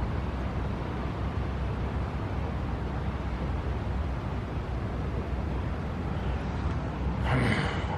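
Steady low outdoor rumble, with a brief hiss about seven seconds in.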